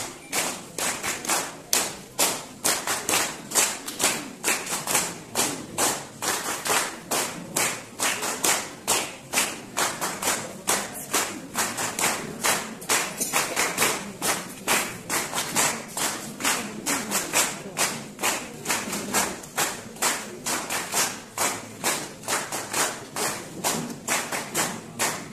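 Audience clapping steadily in time, about four claps a second.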